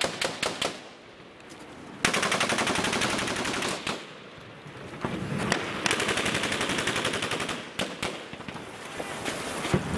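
Automatic gunfire in long sustained bursts of rapid, evenly spaced shots, with a few separate single shots between and after the bursts.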